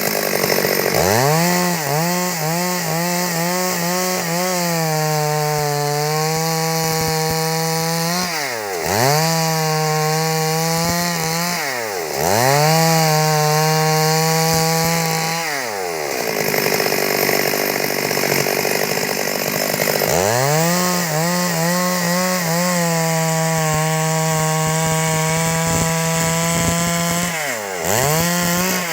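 Stihl MS 382 two-stroke chainsaw running at high revs while cutting wood into boards. Its engine pitch dips and climbs back several times, with a rougher stretch without a clear engine note around the middle.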